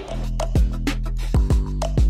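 Background music with a steady beat: deep drum hits over a sustained bass line, cutting in suddenly.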